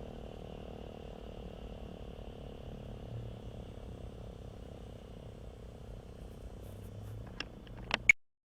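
Faint steady outdoor background of high chirring and low hum, with no siren sounding. Near the end come a few sharp handling clicks on the recording device, and the sound cuts off.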